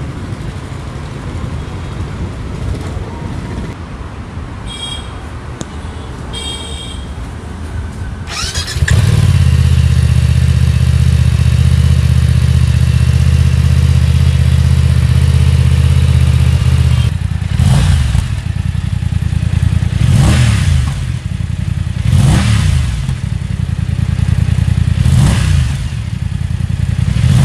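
BMW F900R's 895 cc parallel-twin engine running through its stock exhaust: idling at first, then revved up about nine seconds in and held high for some eight seconds, then blipped five times, each rev rising and falling back.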